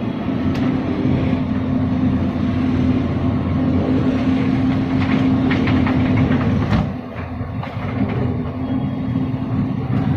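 Excavator's diesel engine running steadily, with a few short knocks in the middle and a brief drop in level about seven seconds in.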